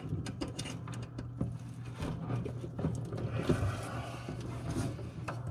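Scattered small clicks and rattles of insulated wires and spade connectors being handled and pushed onto the terminals of an electric heat sequencer, over a steady low hum.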